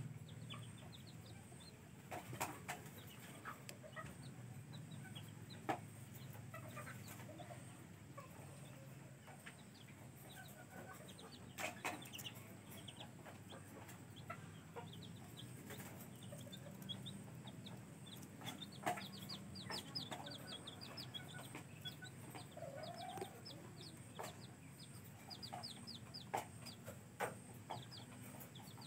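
Sebright bantam chicks peeping: short, high, falling chirps that come in quick runs, thickest about two-thirds of the way through, with a few sharp taps scattered among them.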